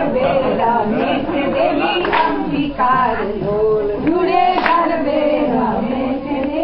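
A group of women singing a Gujarati garba song together without instruments, with a few hand claps.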